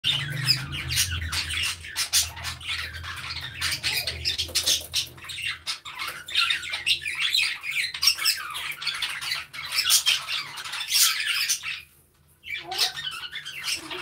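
A flock of budgerigars chattering and squawking, with many calls overlapping. The chatter breaks off briefly about twelve seconds in, then resumes. A low steady hum runs underneath.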